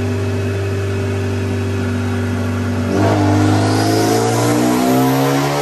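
Hyundai Genesis Coupe 2.0T's turbocharged four-cylinder engine running on a chassis dyno, holding a steady speed. About three seconds in it goes to full throttle and revs climb steadily in a wide-open-throttle dyno pull, louder, with rising turbo and intake hiss.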